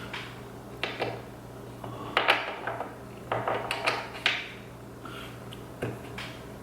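Metal knocks and clicks as a part fitted with fresh O-rings is worked and pushed into an aluminium 48RE transmission case: a handful of separate short knocks, the loudest about two seconds in and a quick cluster a little past the middle, over a steady low hum.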